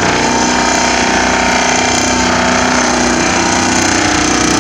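Vibratory pile hammer driving a steel sheet pile into the ground, a loud steady mechanical drone with a buzzing vibration. The pile is sinking easily.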